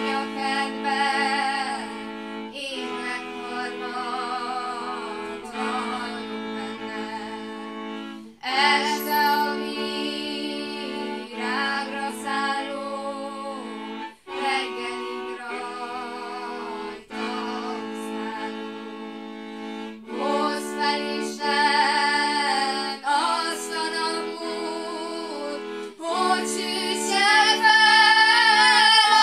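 A woman singing a Transylvanian Hungarian folk song from Feketelak, with a fiddle accompanying her in sustained tones under the melody. The song goes in phrases of a few seconds with short breaths between them, and swells loudest near the end.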